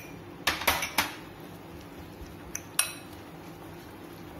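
Metal spoon clinking against a glass mixing bowl: two sharp clinks within the first second and one more nearly three seconds in, with faint handling sounds between.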